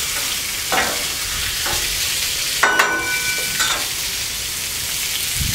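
Diced chicken thigh sizzling steadily on a hot steel Blackstone flat-top griddle, with a few light scrapes of a metal spatula. Near the middle a louder metal clank rings briefly.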